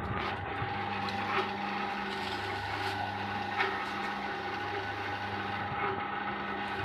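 Granulator machine running: a steady hum, with scattered sharp clicks and knocks over it.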